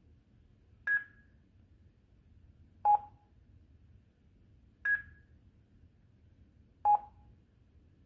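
Mini Guardian medical alert pendant beeping through its speaker: four short beeps two seconds apart, alternating high and low. This is its progress tone while the emergency call to the support center connects.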